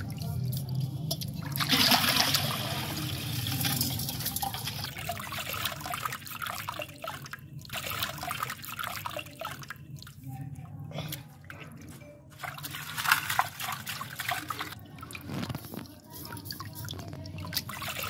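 Muddy water sloshing in a steel bowl and pouring off into a tub in splashes and dribbles, as jewellers' gold-bearing dust is washed and the clay rinsed away from the heavier gold.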